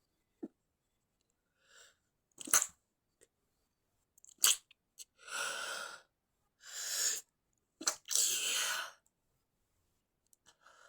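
A person sneezing with the sneezes held in: three short, sharp stifled sneezes, with breathy gasps between them.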